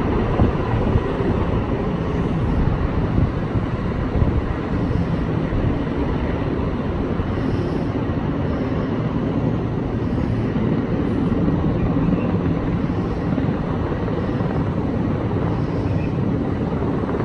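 Helicopter heard from a distance, its rotor and engine making a steady low drone while it flies slowly with a load slung on long lines.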